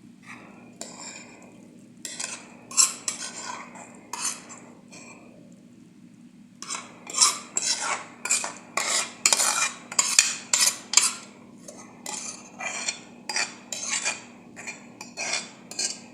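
A spoon scraping and clinking against a pot as the fried sausages and vegetables are stirred and scooped, in a string of quick strokes that is busiest in the middle.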